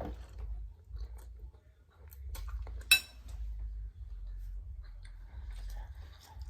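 Close-up chewing of garlic butter shrimp pasta, with soft wet mouth clicks and one sharp clink about three seconds in.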